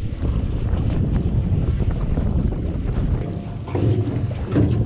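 Wind buffeting the microphone on an open boat at sea: a steady low rumble, with a brief louder patch about four seconds in.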